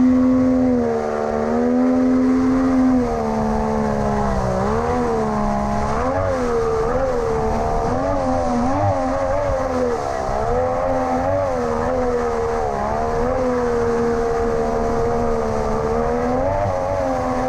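Outboard jet motor running hard, its engine note fairly steady at first and then rising and dipping again and again from about four seconds in as the revs change.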